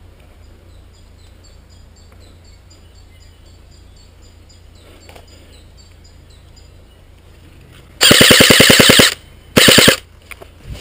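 G&G CM16 Raider DST airsoft electric rifle firing full-auto: a rapid burst of about a second about eight seconds in, then a second short burst half a second later.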